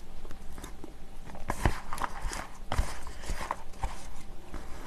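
Chopsticks stirring Buldak stir-fried noodles mixed with chopped chillies in a paper cup, making irregular clicks and taps against the cup and soft slippery noodle sounds.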